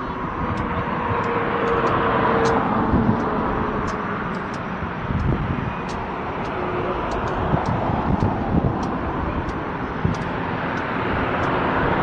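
Steady low rumble of vehicle engines heard outdoors, swelling slightly about two seconds in, with faint light ticks throughout.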